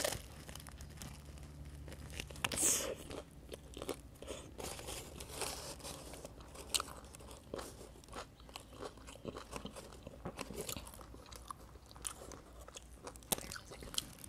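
A person biting and chewing a sandwich on a crusty bread roll: crust crunching between the teeth with many small crunches as she chews, and a louder crunch about two and a half seconds in.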